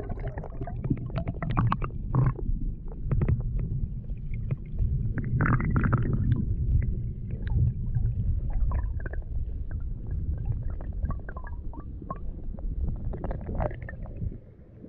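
Stream water heard through a camera held underwater in a shallow creek: a muffled low rumble with many small scattered clicks and taps.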